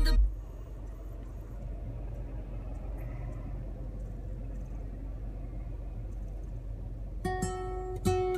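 Music from a high-end car audio system cuts off just after the start. Several seconds of low, steady cabin rumble follow, then a plucked guitar track starts through the system near the end.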